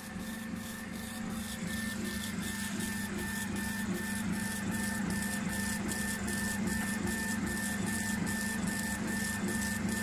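K40 CO2 laser engraver raster-engraving: the stepper-driven laser head sweeps back and forth over the work, giving an evenly repeating whine and tick a couple of times a second, over a steady low hum.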